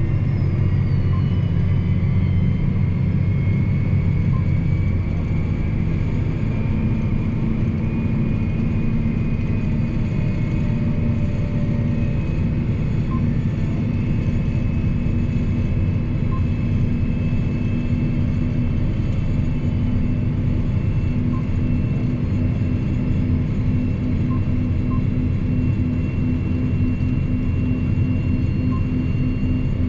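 John Deere 8245R tractor's six-cylinder diesel engine running steadily while pulling a loaded trailer, heard from inside the cab. A faint high whine rises slowly in pitch over the engine drone.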